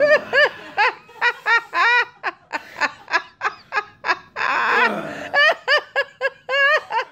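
A person laughing hard: a long run of quick, high 'ha' bursts, about three or four a second, broken by a wheezy breath in about four and a half seconds in before the laughing starts again.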